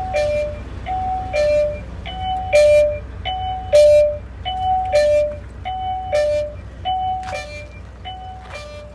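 A truck's electronic two-tone warning chime, high note then low note, repeating about every 1.2 s with a click on each cycle, over the steady low rumble of the idling Isuzu Giga diesel engine.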